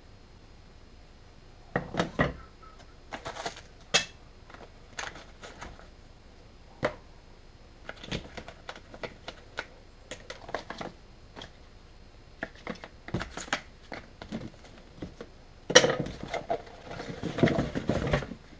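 Thin wooden birdhouse-kit panels being handled and set down on a wooden workbench and cardboard box: scattered light clacks and taps. The cardboard kit box rustles and scrapes near the end.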